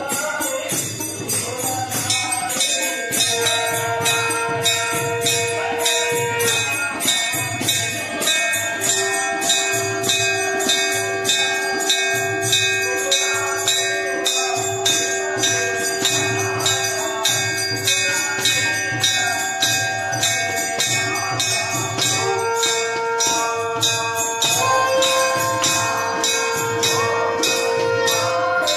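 Devotional instrumental music: a steady low drum beat with continuous jingling percussion and long held melody notes over it.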